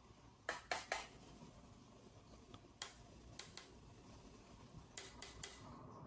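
Faint, sharp clicks of small switches in a quiet room: two about half a second in, three around the middle, and three in quick succession near the end.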